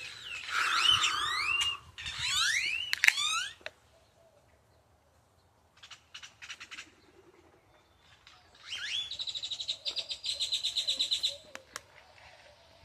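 A bird singing: a run of fast, swooping whistled notes, then a few sharp clicks around the middle, then a rapid even trill about three seconds long.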